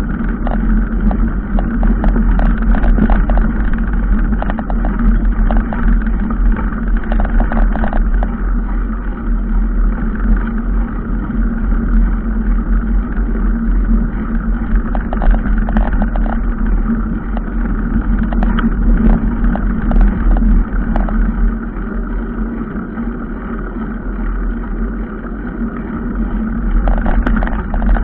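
A motor vehicle running steadily with a constant low hum, with frequent small knocks and rattles throughout.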